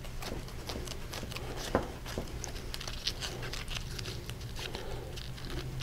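String being wound around paper towel packed on a duck skin's leg, making soft rustles and light ticks from handling, over a steady low hum.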